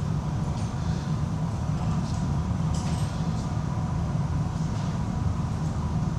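Steady low mechanical hum, with a faint steady tone above it and a few faint, brief clicks or scrapes.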